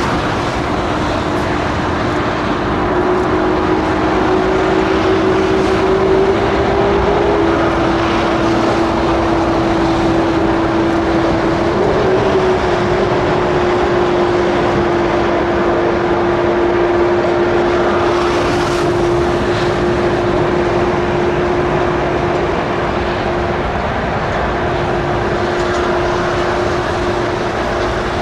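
Boeing 747 freighter's jet engines running at taxi power: a steady, loud rush of engine noise with one held whine that rises slightly a few seconds in and then settles.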